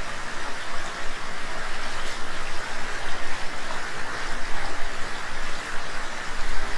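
Steady rushing of flowing water in a rocky hill stream.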